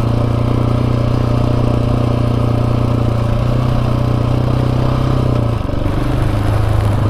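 Dirt bike engine running steadily under way, heard on the moving motorcycle. About five and a half seconds in the engine note dips briefly and settles at a slightly different pitch.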